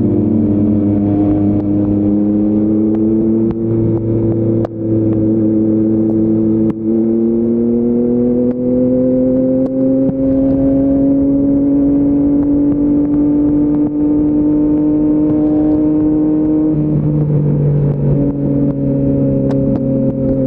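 Yamaha MT-09's 890 cc inline-three running through an Akrapovic full-system exhaust under way, with brief drops in sound about five and seven seconds in. Its pitch then climbs slowly as the bike pulls, and steps to a different note near the end.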